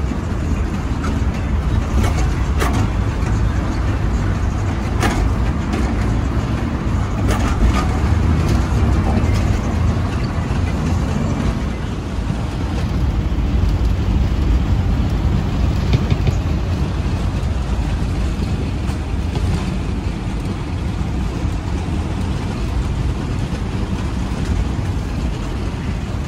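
Steady low rumble of a car driving on the road, with a few light clicks in the first third.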